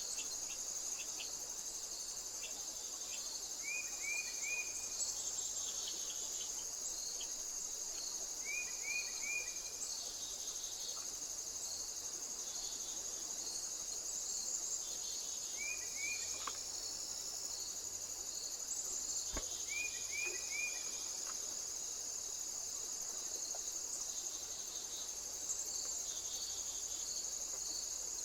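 Insects trilling steadily in a continuous high-pitched chorus, with short chirps in quick groups of two or three repeating every few seconds.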